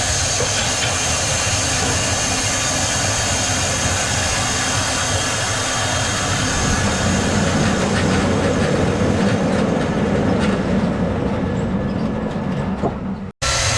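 Heavy sawmill machinery running steadily, with a dense mechanical rumble and hiss that swells in the middle of the stretch. It cuts out abruptly for a moment near the end and then resumes.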